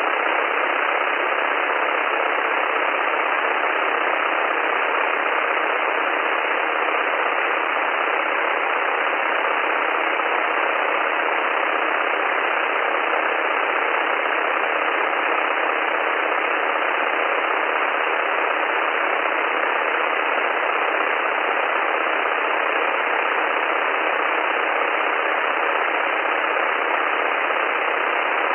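Steady cockpit noise from a SportCruiser with its Rotax 912 engine running at idle, picked up through the aviation headset intercom: an even hiss with the low rumble and the highs cut away.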